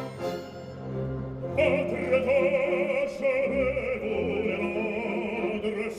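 Male operatic singer with an orchestra: sustained orchestral notes, then about a second and a half in the singer comes in, holding long notes with strong vibrato.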